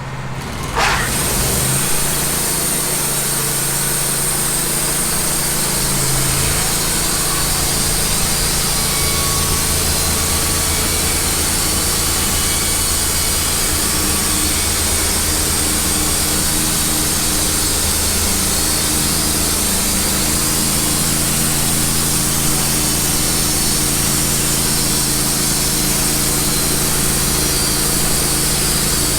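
Wood-Mizer LT15 portable band sawmill running, its engine-driven band blade sawing steadily through a cedar log; the engine comes up from idle and the cut starts about a second in.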